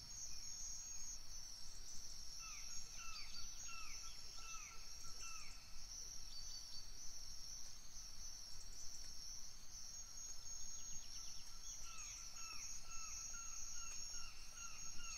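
Steady high-pitched insect chorus, with a bird giving short, downward-bending calls, about two or three a second. The calls come in a run of a few seconds starting about two seconds in, and again from about ten seconds in.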